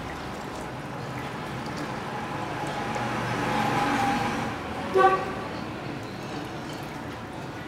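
A motor vehicle passes, swelling and then fading, with a short horn toot about five seconds in. Water trickles faintly underneath as it is poured from a steel cup into a plastic bottle.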